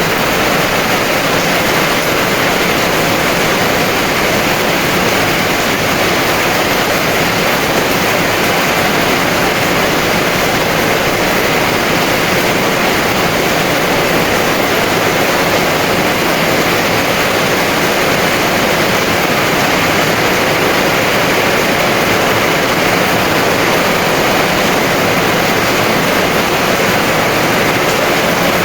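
Heavy rain falling as a steady, dense hiss, with no thunder or separate drop hits standing out.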